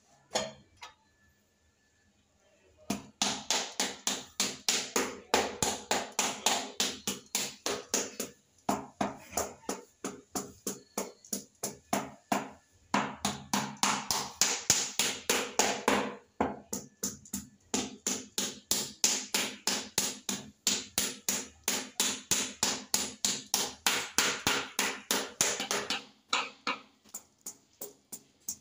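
Rubber mallet tapping a large floor tile, bedding it into the epoxy adhesive beneath. It goes in long runs of quick knocks, several a second, with a few short pauses, starting about three seconds in and stopping near the end.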